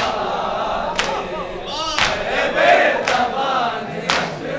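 Matam by Shia mourners: chests struck by hand in unison, a sharp slap about once a second, under a group of men chanting a noha.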